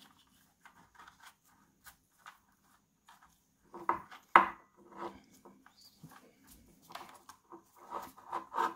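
Handling noise of wires and plastic connectors being moved and rubbed by gloved hands at the scooter's controller: scattered light clicks and rustles, with a louder cluster of knocks about four seconds in and again near the end.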